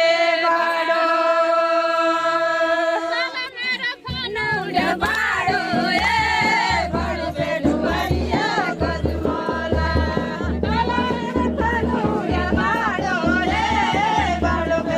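Pahadi folk song sung by voices, opening on one long held note. About four seconds in, a steady drum beat starts and the singing goes on in wavering, ornamented lines.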